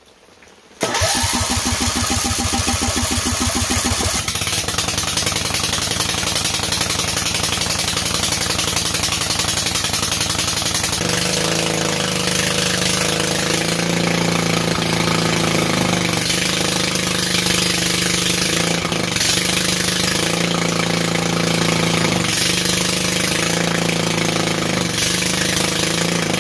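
Small MTD lawn tractor engine cranked by its electric starter, catching within a few seconds and then running on, its freshly cleaned and dried spark plug having cured the flooding. About ten seconds in its note settles to a steadier, even pitch.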